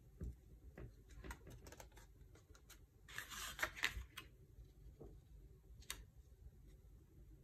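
Faint paper handling: small taps and ticks, and about three seconds in a brief rustle as a glued strip of designer paper is laid and slid into place on a cardstock panel.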